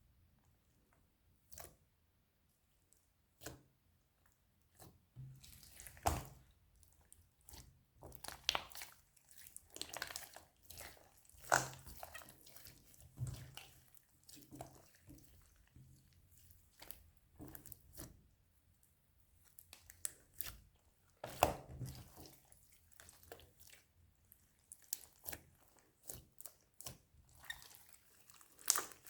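Clear slime being squished and stretched by hand, making irregular sticky clicks, pops and crackles.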